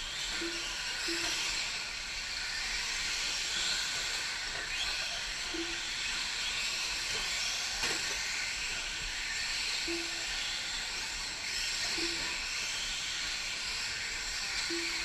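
Several electric 4WD short-course RC trucks racing on clay: a steady high hiss and whine of motors and tyres. Short low tones recur every few seconds, often in pairs.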